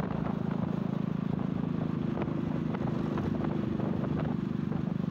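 Motorcycle engine running steadily while cruising, a low even drone with a fast pulse, over road noise.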